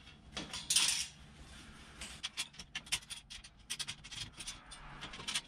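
Small metal clicks and rubbing as bolts and hardware are handled and set into the holes of a steel shelf C-channel lying on a wire grid, with a longer scrape about a second in.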